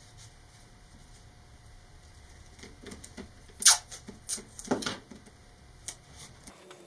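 Masking tape being pulled off the roll and torn, heard as a handful of short sharp rips and clicks, the loudest a little past halfway through, with light handling of the paper rocket tube.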